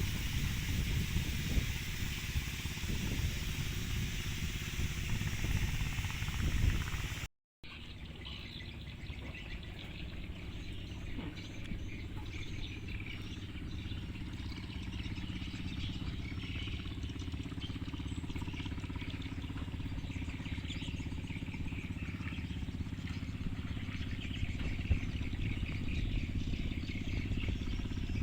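Outdoor ambience: a windy, rumbling noise like a moving vehicle, then after a sudden cut, small birds chirping over a steady low hum.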